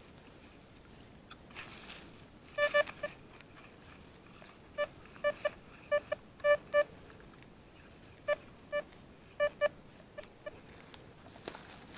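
Detech Chaser metal detector beeping as its coil sweeps back and forth over one spot: about a dozen short beeps at a single mid pitch, in clusters of two or three, signalling a buried metal target.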